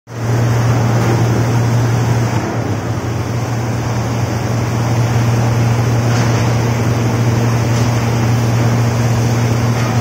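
Chicken carcass washing machine running: a steady motor hum over the continuous rush of churning, frothing water in the wash tank.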